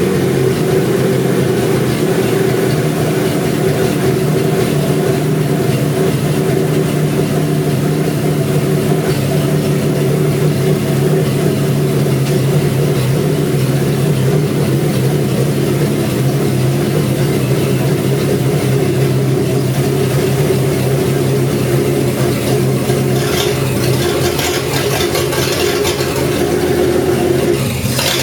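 Chevrolet 250 inline-six engine running steadily on an engine stand, freshly revived and still burning oil out of its cylinders. A hissier sound joins in the last few seconds.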